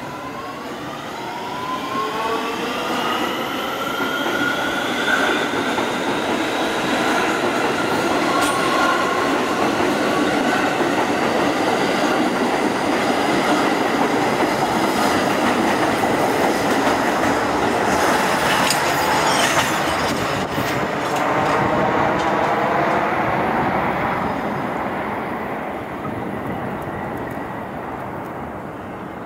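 R211A subway train pulling out and passing close by. Its electric traction motors whine in rising tones as it picks up speed, then the passing cars make a steady rumble with wheel clatter over the rail joints and a few sharp clanks, fading near the end.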